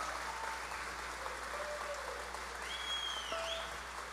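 Audience applauding after the band's performance, with a short high whistle-like tone about three seconds in.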